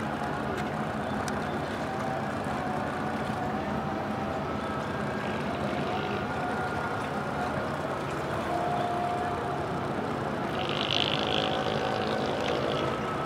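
Steady drone of ship engines running, with several steady tones through it and a brief high-pitched sound near the end.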